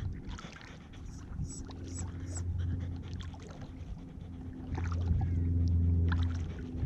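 Water sounds and light knocks from a kayak being paddled on a lake, over a low steady hum that swells twice.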